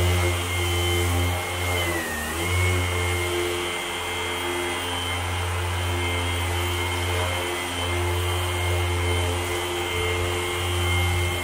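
Cordless orbital sander running steadily while a fine abrasive sanding disc works over a painted panel: a motor whine over a low hum, with a brief dip in pitch about two seconds in before it picks back up.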